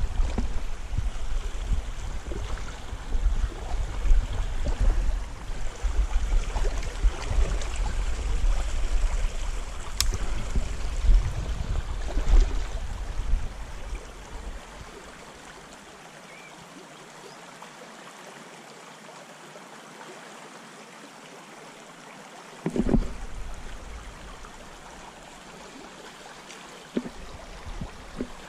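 Shallow river water running and rippling over stones, a steady wash. A heavy, uneven low rumble sits under it for the first half and then drops away, and a short thump comes about three-quarters of the way through.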